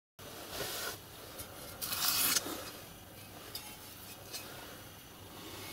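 Machined metal rings being handled and slid into a rolled metal smokebox shell: metal scraping and clinking, with a short scrape about half a second in, a louder one around two seconds in, then a few light clicks.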